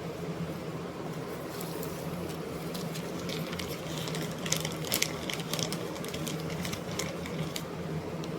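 A steady low hum, with a run of sharp clicks and taps about halfway through.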